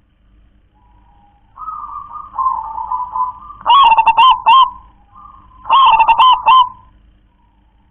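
Zebra dove (local perkutut) cooing in its cage: a run of softer coos, then two loud phrases of several quick, staccato coos, about two seconds apart.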